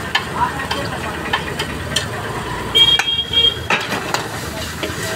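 A metal spatula scrapes and clanks against a large iron wok in repeated short strikes while noodles and vegetables sizzle in it. About three seconds in, a short high-pitched tone sounds for about a second.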